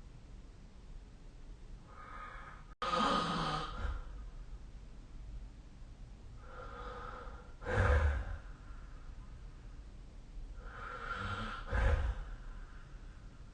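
A sleeping person snoring: three slow, noisy breaths about four seconds apart, each with a low snoring rumble.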